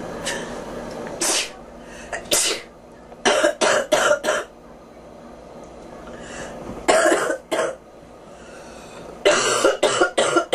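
A girl coughing: a few single coughs, then bouts of three to five short, harsh coughs in quick succession, with pauses of a couple of seconds between the bouts.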